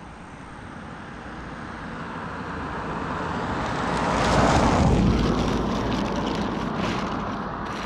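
A vehicle passing by, its noise building for about four and a half seconds and then slowly fading.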